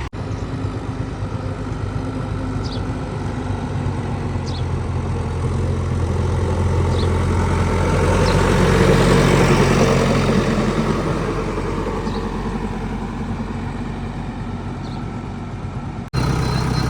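Heavy diesel engine of earth-moving or farm machinery running. It grows steadily louder to a peak about halfway through, then fades back down. A few faint, short, high squeaks come through it.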